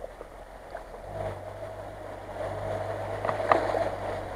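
Chevrolet Niva SUV wading through a flooded road, its engine running steadily at low revs with water washing around the wheels. The engine hum comes in about a second in.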